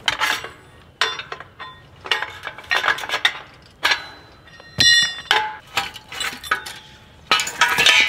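Metal fence stretcher being loosened and unhooked from tensioned woven-wire fence: a string of metallic clinks and clanks, the sharpest about five seconds in with a short ring.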